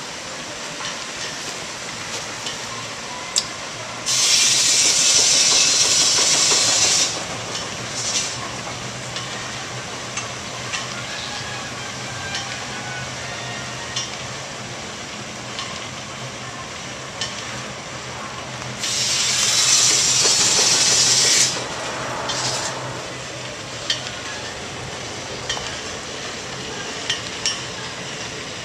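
Steam traction engine letting off steam in two long hisses, each about three seconds, the first about four seconds in and the second near twenty seconds in. Between them there is a steady low hum with scattered sharp clanks.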